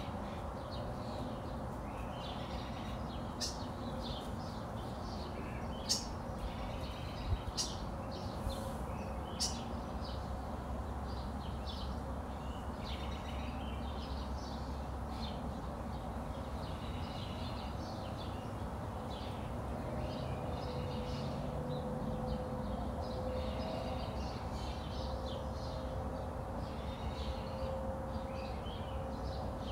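Birds chirping and calling at dawn: many short chirps, with a few sharp, piercing calls in the first ten seconds. A steady low rumble runs underneath.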